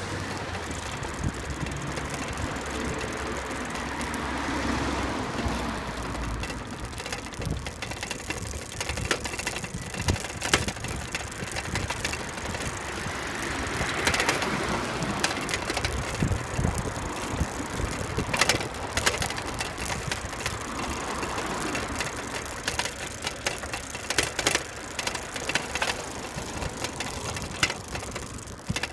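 Rolling noise from riding along a pavement: a steady rush of wind and tyres, with rattles and knocks from the camera-carrying vehicle as it goes over bumps and paving joints, several of them sharp and loud.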